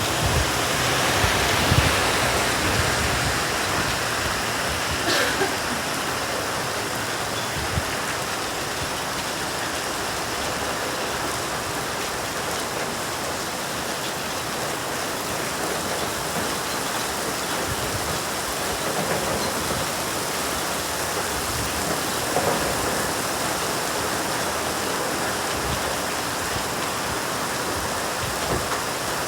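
Steady rain falling, a continuous hiss, with a few louder single drops or knocks now and then.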